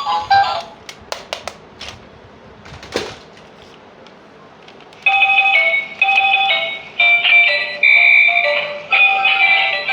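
A few sharp clicks, then about halfway through a high electronic melody starts, its notes stepping like a ringtone or door chime.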